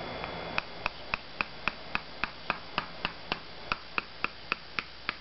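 Mallet tapping steadily on the top of a black PVC-pipe paintball landmine, about four light blows a second, setting it into the ground. The taps begin about half a second in.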